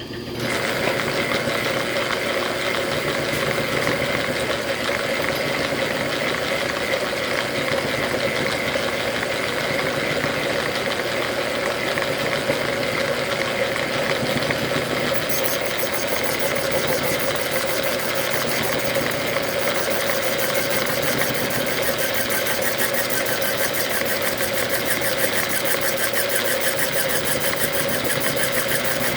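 Machine-shop cutting setup on a lathe running steadily after being switched on, cutting one of the 16 gear-tooth cuts for a thread dial. About halfway through, a finer high hiss joins the steady hum.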